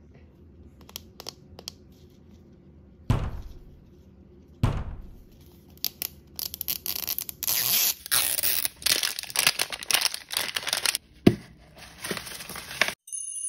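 A plastic toy-ball package being unwrapped by hand. A few light taps and two thumps, then the plastic wrapper tearing and crinkling for several seconds, and a sharp click as the plastic ball's halves come apart.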